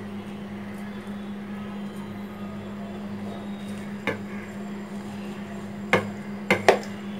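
A steel knife clicking against a ceramic plate while cutting soft roasted eggplant. It strikes once about four seconds in, again near six seconds, and twice in quick succession just after. Under it runs a steady low hum.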